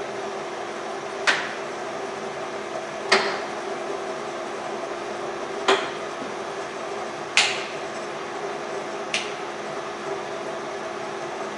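LeBlond 13-inch engine and turret lathe running with a steady hum, broken by five sharp clunks a couple of seconds apart as the carriage feed is shifted between forward and reverse.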